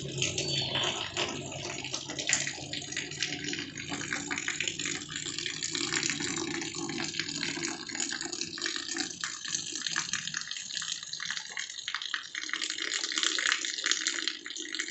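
Steady rain falling, with a thin stream of runoff water pouring onto a corrugated metal sheet and splashing.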